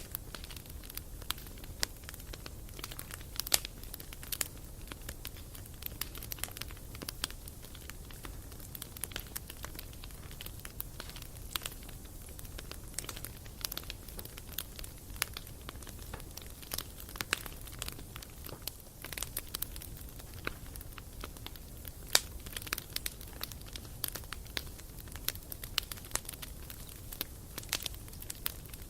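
Wood campfire crackling, with a dense run of small irregular pops and snaps and an occasional louder pop over a low steady rush.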